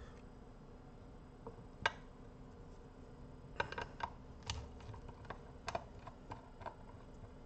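Scattered small clicks and taps of hands and a screwdriver working on an opened car amplifier's circuit board and metal chassis: about nine sharp clicks, irregularly spaced, the loudest about two seconds in and again near six seconds.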